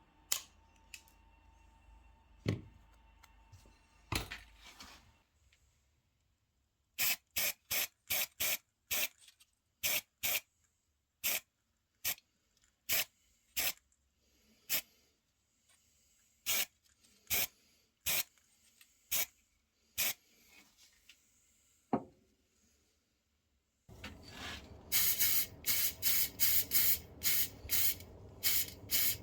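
Aerosol spray can giving many short spray bursts, spraying paint onto small diecast model parts. The bursts come in a loose rhythm and grow denser near the end over a steady background hiss.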